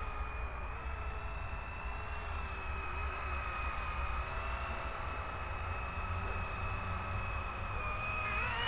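Blade 120 SR electric micro RC helicopter running, a steady motor-and-rotor whine of several tones over a low rumble. Near the end the whine rises in pitch as the helicopter lifts off and climbs.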